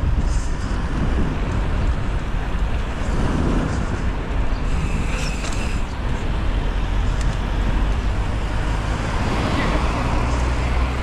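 Steady low rumble of wind on an action camera's microphone and the tyres rolling on asphalt as a mountain bike rides along a town street, with road traffic around.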